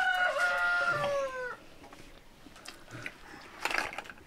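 A rooster crowing: the last part of a crow held on a steady pitch and then falling away, over about a second and a half in. A few faint clicks follow.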